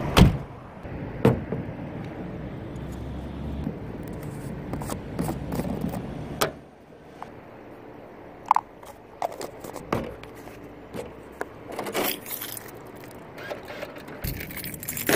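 Clicks, knocks and scrapes of a plastic supplement tub and a shaker bottle being handled on a car roof, over a low steady hum that stops about six and a half seconds in.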